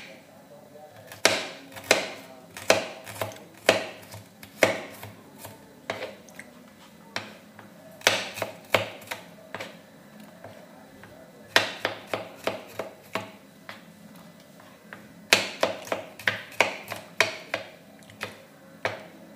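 Kitchen knife thinly slicing shallots and garlic on a small wooden cutting board: the blade knocks on the board in runs of sharp strokes, with short pauses between the runs.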